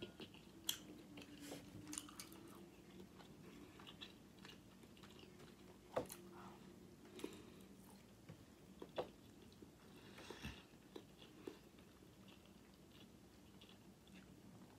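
Faint close-miked eating sounds: chewing, with scattered soft mouth clicks, smacks and small crunches.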